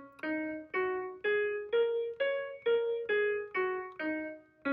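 Piano sound from notation-software playback, playing the Zhi mode pentatonic scale on the black keys from C#: C#, D#, F#, G#, A#, C# and back down, about one note every half second. It climbs to the top note about two seconds in, and the low C# sounds again near the end.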